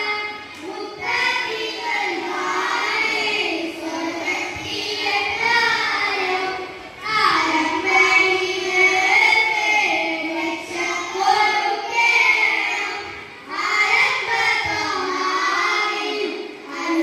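A child singing a melodic song in long, held phrases, with short pauses for breath between them.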